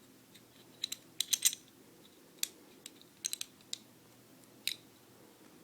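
Light, irregular metal clicks and taps in small clusters: pistol parts being handled and seated, the barrel and recoil spring assembly being fitted back into the slide of an FN FNS9. The loudest cluster comes a little over a second in.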